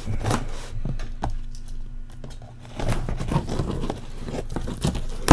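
Cardboard box being opened by hand: tape tearing and cardboard flaps scraping and rustling, in short bursts. A single sharp snap, the loudest sound, comes at the very end.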